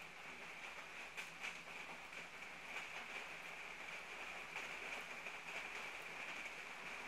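Steady rain falling on wet pavement and puddles, a faint even hiss with a few sharper drop hits now and then.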